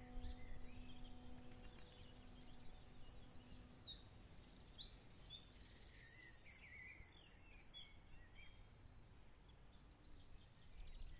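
Faint outdoor ambience with wild birds singing: scattered chirps and fast high trills, busiest in the middle. The last held notes of background music die away in the first few seconds.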